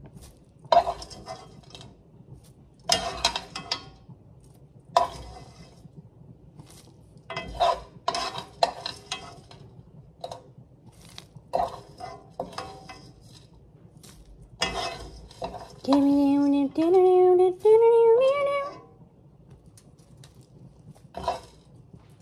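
A spoon scraping and clinking against a pan as toasted spices are spooned into a cloth spice bag, in short separate scrapes. About sixteen seconds in, a voice sings a short phrase of held notes stepping upward.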